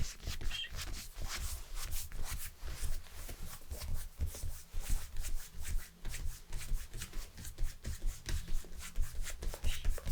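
Hands rubbing in quick, repeated massage strokes: a continuous brushing friction with soft low thumps.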